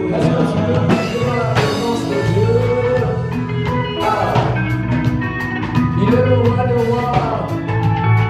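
Live gospel praise-and-worship band music with guitar, drums and singing.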